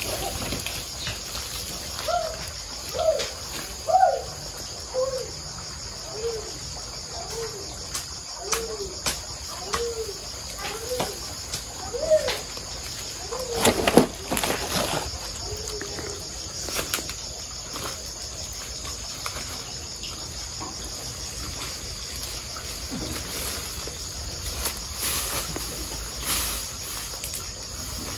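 Crickets and other night insects chirring steadily in a high band. Through the first half a run of short rising-and-falling calls comes about once a second, and a single thump about halfway through is the loudest sound.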